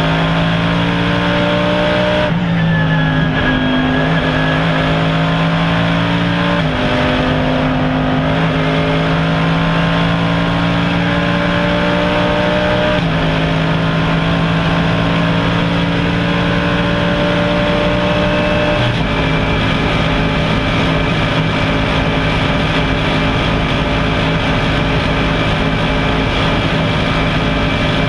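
Mercedes-Benz SLS AMG GT3's V8 heard from inside the cockpit, pulling hard at full throttle: the pitch climbs slowly and drops with each upshift about 2, 7, 13 and 19 seconds in, then holds steady in top gear. Wind and tyre noise run underneath.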